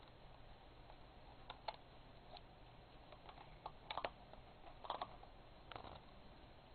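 Faint, irregular clicks and taps of a bent-wire grabber tool against a small wooden box and its metal latch as the latch is worked open, with the loudest clicks about four and five seconds in.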